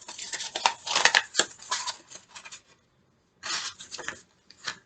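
Small items from a crystal box and their packaging being handled: rustling with sharp clicks for about two and a half seconds, then after a pause a short rustle and a couple of clicks near the end.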